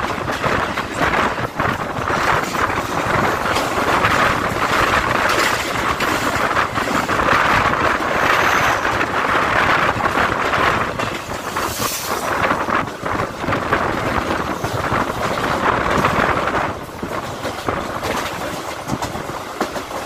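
Mumbai suburban local train running at speed, its wheels rumbling and rattling over the rails, heard from the open doorway. Another local train passes close alongside about halfway through, and the noise eases a little near the end.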